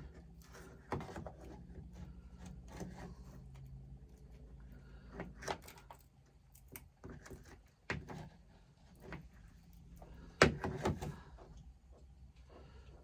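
Scattered clicks and knocks of hands working among tools and wiring, the sharpest about ten and a half seconds in, over a low steady hum that fades out about six seconds in.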